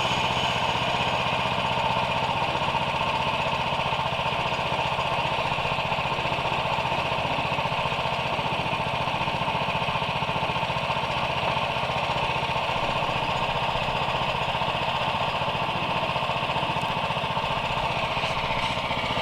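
Gasoline engine of a portable band sawmill running steadily under load while the band blade cuts through an oak log.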